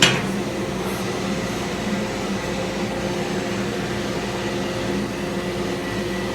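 Conveyor-fed drum sander running steadily with a constant machine hum, a sharp knock right at the start.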